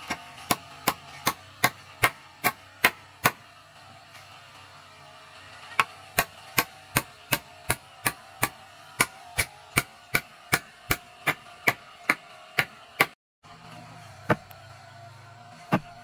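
Short-handled metal digging tool striking hard, compacted soil over and over, about two or three sharp strikes a second, digging a hole beside a wooden post. The strikes stop briefly after the first few seconds, run on steadily, then come singly near the end.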